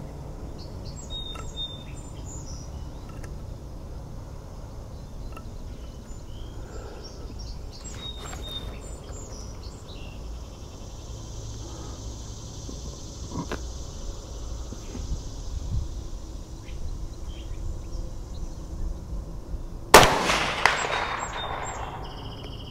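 Quiet open-air background with scattered bird chirps, then near the end a single sharp shot from a Mossberg 640K Chuckster bolt-action .22 Magnum rifle, its echo rolling off over about two seconds.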